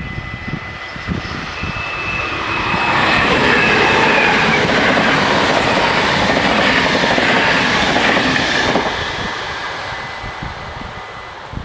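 NS VIRM double-deck electric intercity train passing over a level crossing at speed: the rush and rumble of its wheels on the rails builds from about two seconds in, holds loud for several seconds, then cuts off sharply near nine seconds as the last car clears and fades away. A steady ringing from the crossing's warning bells sits underneath and stops shortly before the end.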